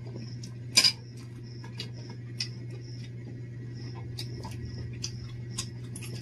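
Spoon and fork clinking against ceramic plates during a meal, with one louder clatter just under a second in and lighter clicks after it, over a steady low hum.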